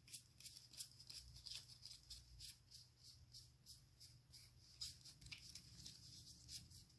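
Faint, irregular soft flicks and rustles of tarot cards being handled and shuffled, a few per second, over a low steady room hum.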